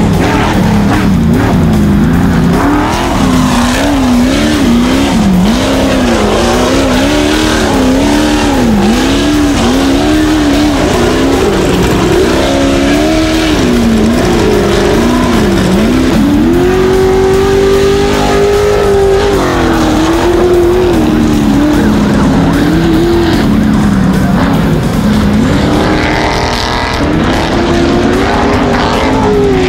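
Ultra4 off-road race car engines revving hard, pitch rising and falling over and over with the throttle, with one long held rev about halfway through.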